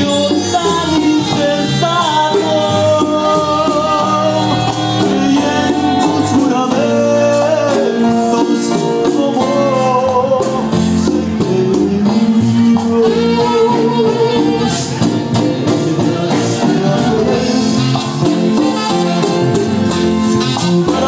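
A live Latin dance band playing with a singer, over a steady percussion beat.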